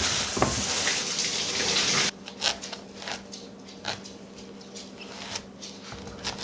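Water running from a tap in a steady stream, shut off abruptly about two seconds in, followed by scattered light clicks and clinks of dishes and utensils.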